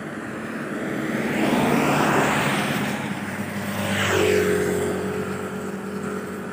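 Vehicles passing on a wet paved road: a car hisses past about two seconds in, and a second vehicle goes by around four seconds with a falling whine. Then a motorcycle engine hums steadily as it approaches.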